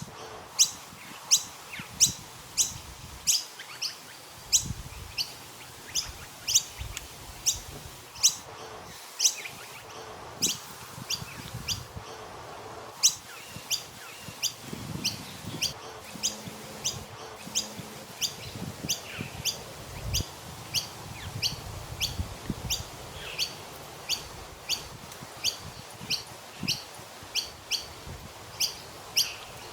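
Noisy miner calling from a tree: short, sharp, high chirps repeated steadily, roughly two a second.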